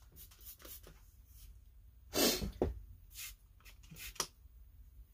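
Hand trigger spray bottle squirting soapy water onto a Stihl MS170 chainsaw in several short spurts, the loudest about two seconds in: a bubble check for the crankcase air leak found in pressure testing.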